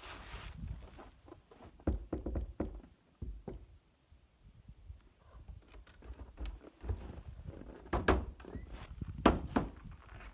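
A series of irregular knocks and thuds, with the strongest ones about two seconds in and near eight and nine seconds in.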